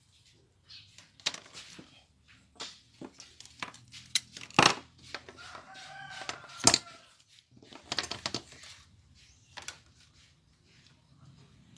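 Irregular clicks and knocks of parts being handled on a workbench, the two loudest a couple of seconds apart near the middle. A rooster crows once in the background a little past the middle.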